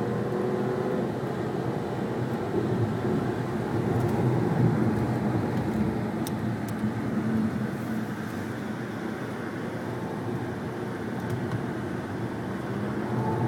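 Supercharged Audi A6 heard from inside the cabin while lapping a race track: steady engine and road noise, a little louder about four seconds in.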